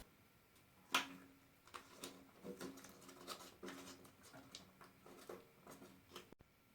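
A sharp click about a second in, then a faint steady hum with soft irregular clicks and ticks from the Scheppach DP18 Vario drill press as its mechanical variable-speed drive is worked.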